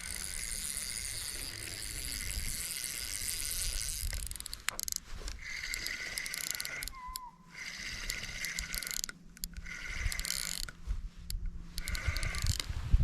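Fishing reel being cranked, a mechanical whir as line is wound in, stopping and starting again several times in short turns.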